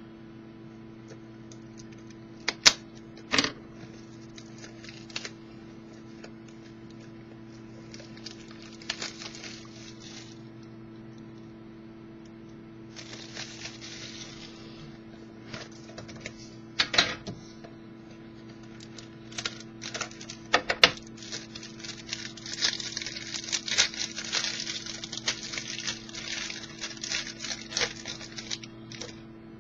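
Trading card box being opened and its packaging handled: scattered clicks and taps of cardboard and plastic, then a longer stretch of crinkling and rustling near the end, over a steady electrical hum.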